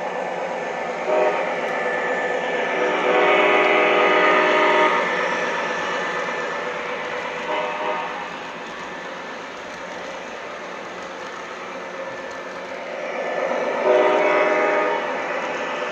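MTH RailKing ES44AC model diesel locomotive's Proto-Sound 3.0 system blowing its air horn in several blasts: a short one about a second in, a long one from about three to five seconds, and another long one near the end. Under the horn runs a steady sound of the engine and the wheels on the three-rail track.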